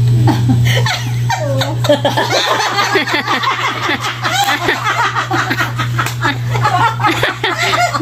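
A small group of people laughing and chuckling together, several voices overlapping, over a steady low hum.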